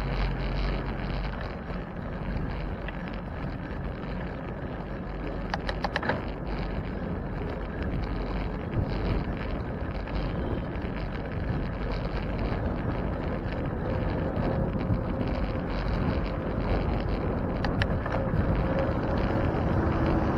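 Wind rushing over the microphone on a moving bicycle, mixed with street traffic noise, with a few short rattles about six seconds in and again near the end.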